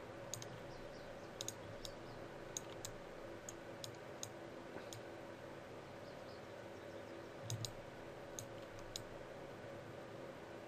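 Computer mouse and keyboard clicks at an irregular pace, some coming in quick pairs, over a faint steady hum from the computer.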